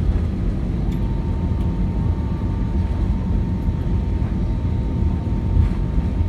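Steady low rumble of cabin noise inside an Airbus A319-115 on the ground after landing, with a faint thin steady tone coming in about a second in.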